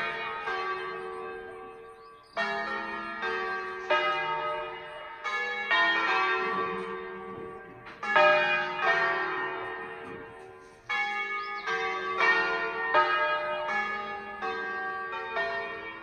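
Church bells ringing from a village bell tower: bells of different pitch struck one after another in an uneven sequence, each stroke ringing on and overlapping the next.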